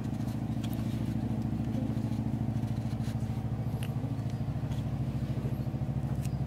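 A small engine idling steadily with a regular pulsing throb. A few faint light clicks come from a knife scoring a mangosteen rind.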